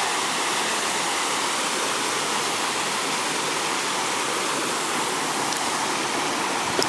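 Small waterfall and a shallow stream rushing over rocks: a steady, even splashing hiss.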